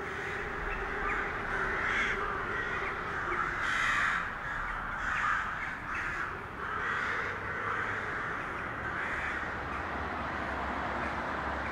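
A flock of crows cawing over and over, several calls overlapping at irregular intervals, over a low steady background hum.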